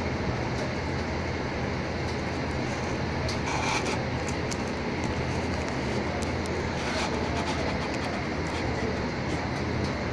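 Steady low rumbling background noise with a hum, broken by brief crackles about four and seven seconds in.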